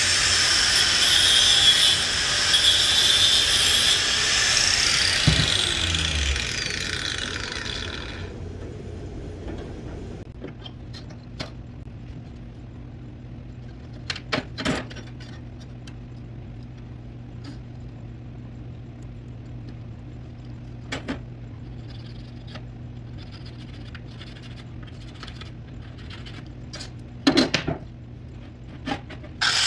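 A small hand-held power grinder whirring, then winding down and fading out over several seconds. After that a low steady hum with scattered light taps and clicks from sheet metal being handled on the bench, and a grinder starting up again right at the end to cut new sheet steel.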